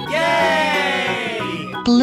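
A long, cheerful "Yay!" cheer that falls in pitch and fades after about a second and a half, over light background music.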